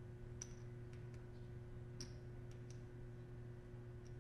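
Faint, scattered clicks of poker chips being fingered on a stack, over a steady low hum.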